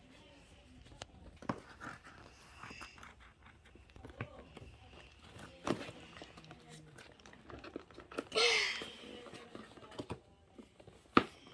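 Fingers picking and scratching at tape on a cardboard toy box: scattered small taps, scrapes and crinkles, with a louder rustling scrape about eight seconds in and a sharp click near the end.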